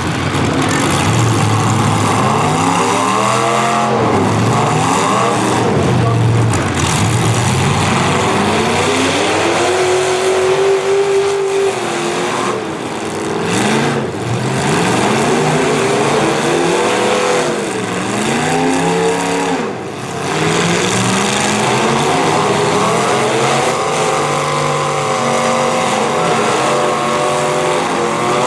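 V8 derby car engines revving hard, their pitch rising and falling over and over as the cars accelerate and back off.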